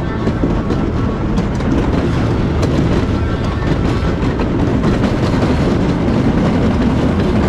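Wooden roller coaster train rolling along its wooden track: a steady rumble of wheels with scattered sharp clicks and clatter.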